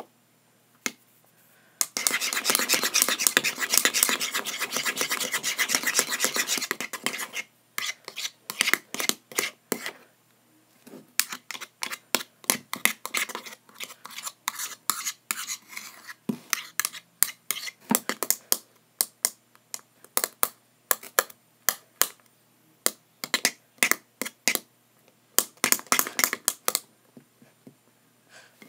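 A utensil stirring and scraping slime mixture around a bowl. First comes a continuous scraping run of about five seconds, then a long stretch of quick, separate stirring strokes.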